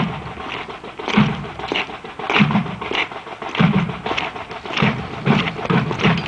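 Marching band drumline playing a street cadence: sharp snare and stick clicks over tenor and bass drum hits. It is sparse for about the first second, then settles into an even beat of roughly two strokes a second.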